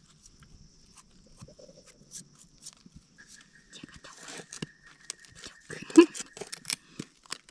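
Scattered crackling and snapping of dry leaf litter and twigs, thicker in the second half, as someone moves through the forest floor foraging for mushrooms. A thin steady tone sounds from a few seconds in until near the end.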